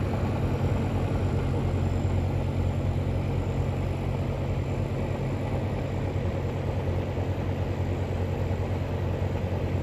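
Dehumidifier running with a steady low hum from its compressor and fan while refrigerant is being topped up into a system that had been found low on gas.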